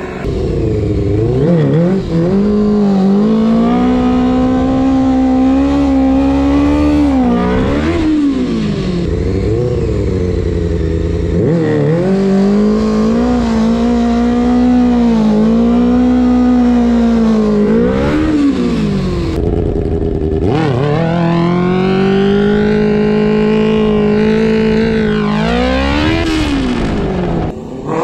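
Honda CBR600 F4i inline-four engine revving: held high for several seconds at a time, with the revs dropping and climbing again every four to six seconds.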